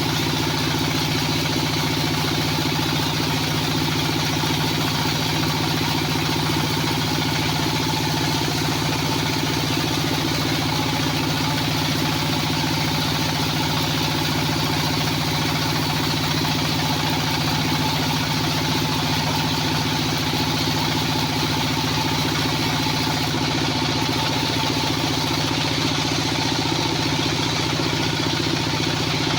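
Horizontal band sawmill (bandsaw selendang) running steadily, its engine holding a constant speed.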